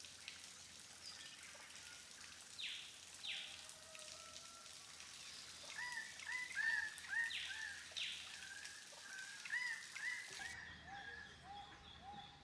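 Rainforest birds calling faintly: a few short, sharp high notes, then from about six seconds in, runs of quick repeated arching notes. Near the end the background changes suddenly.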